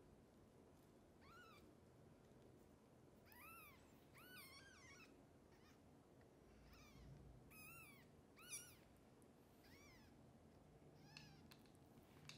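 Newborn kittens mewing: about eight short, thin, high-pitched cries, each rising and falling in pitch, a second or so apart and faint.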